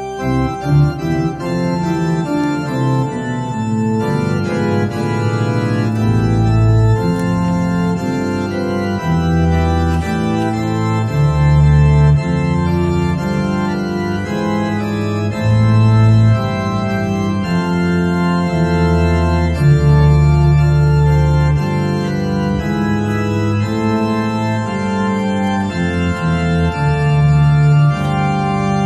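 Organ playing slow sustained chords over deep bass notes, the chords changing every second or two.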